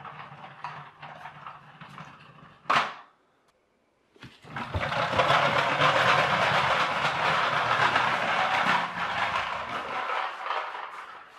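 Rubber-band-powered plastic toy tractor rolling across a wooden parquet floor, its plastic wheels and body making a steady rattling rumble. It starts about four seconds in, after a sharp click and a short silence, and fades near the end.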